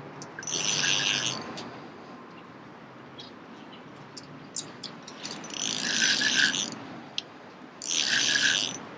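Fixed-spool reel on a feeder rod being wound in three short spells of about a second each, with pauses between.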